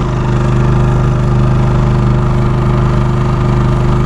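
Portable petrol generator engine running steadily at a constant speed, an even hum with no change in pitch.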